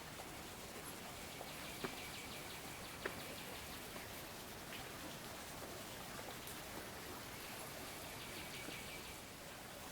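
Steady rushing of falling water from a waterfall. A high, rapid pulsing call comes in twice, and there are two sharp clicks between about two and three seconds in.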